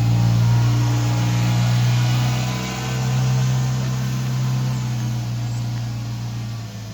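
Craftsman LT1000 riding lawn mower's engine running steadily with an even, droning hum, easing off a little near the end.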